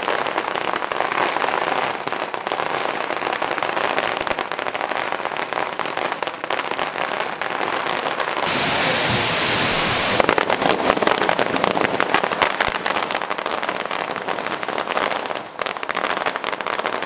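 Firecrackers crackling and popping in a rapid, dense string, with a steady hiss lasting nearly two seconds about eight and a half seconds in, then crackling again.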